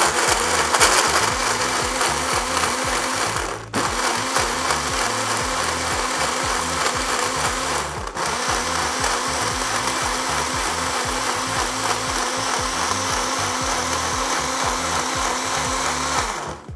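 WMF personal blender running, grinding cashews and dates into oat milk and cold brew coffee. It runs steadily with two very brief breaks, and stops near the end.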